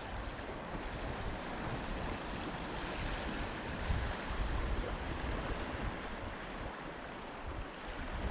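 Steady sea wash of small waves around the kayak, with wind buffeting the microphone in low rumbles.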